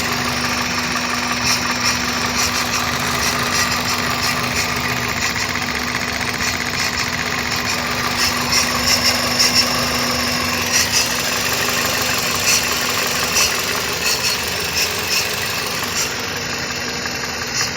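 Toyota Probox engine idling at steady revs, with irregular sneezing, sputtering pops breaking into the running every second or two. This is a misfire that the owner traced to cracked ignition coil boots letting the spark jump to the engine body.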